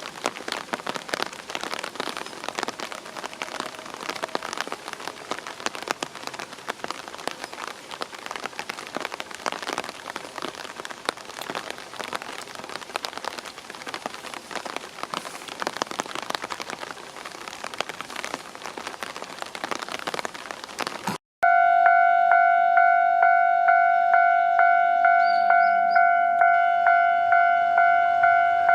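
Heavy rain falling in a thunderstorm, a dense crackle of drops. After a cut about 21 seconds in, a railway level-crossing warning bell rings steadily, a two-tone clang repeating about one and a half times a second, signalling an approaching train.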